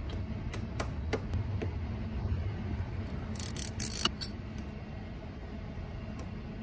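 Metal clicks and clinks of a 17 mm socket and extension being fitted onto a scooter engine's oil drain plug and turned by hand, a few single clicks near the start and a quick cluster of sharper clinks about three and a half seconds in. A steady low rumble sits underneath.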